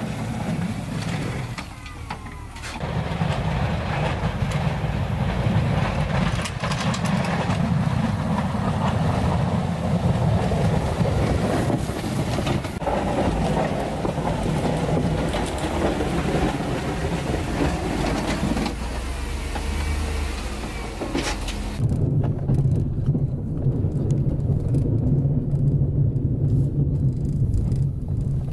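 Motor vehicle running, a heavy low rumble with a hiss of road or wind noise over it. About 22 seconds in the hiss drops away and the low rumble carries on alone.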